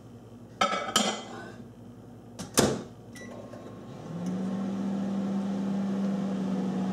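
Over-the-range microwave oven being loaded and started: a couple of clatters, then the door shuts with a loud click and a short keypad beep follows. About four seconds in, the oven starts up with a steady low hum.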